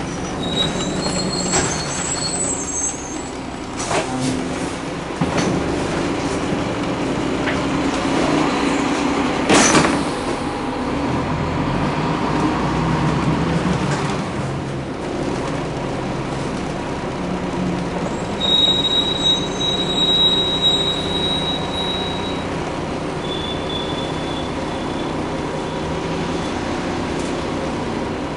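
Ride noise inside a moving 1992 Flxible Metro bus, with its Cummins L10 diesel and Voith transmission running steadily under road noise and rattles. A sharp clunk comes about nine seconds in. A thin high-pitched squeal comes near the start and again for a few seconds about two-thirds of the way through.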